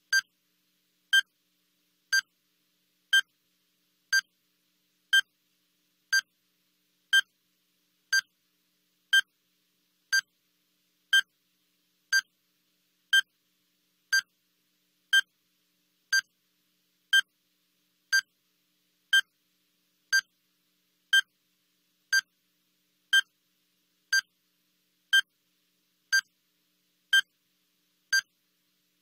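Electronic countdown-timer beep, one short high beep every second, each marking a second ticking off the countdown.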